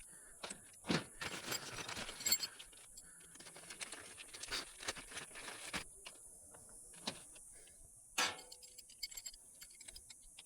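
Scattered light clicks and metallic clinks of hand tools and metal parts being handled during a fan motor job, with a sharper knock about eight seconds in.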